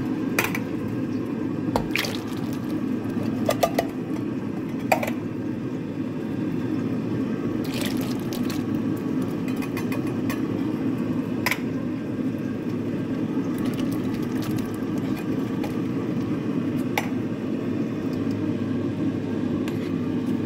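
Canned pinto beans and their liquid poured from a can into a slow cooker of diced onions, with several short sharp knocks of the can against the pot. A steady low hum runs underneath.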